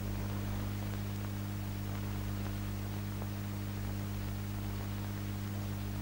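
Steady low electrical hum under an even hiss with a few faint ticks: the background noise of an old film soundtrack, with no narration or music.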